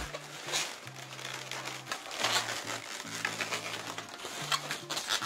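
Latex modelling balloons being handled, rubbing and crinkling a few times in short spells, over background music with a low bass line.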